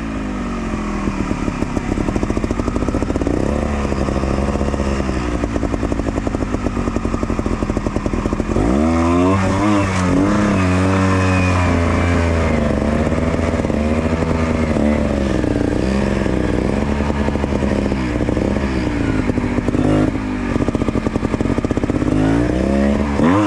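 Trials motorcycle engine at low revs, blipped again and again in short bursts of throttle while picking through a tight obstacle section, with a harder, longer burst of revs about nine seconds in.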